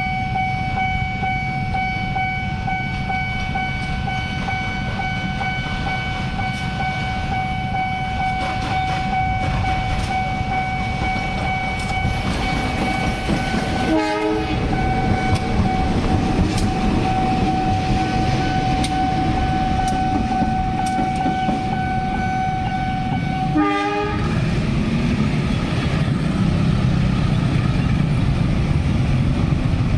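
KAI diesel locomotive passing slowly: the engine rumbles and its wheels run on the rails, over a steady high ringing tone that holds and then stops about 24 s in. After that, a heavier rumble of motor traffic at the level crossing takes over.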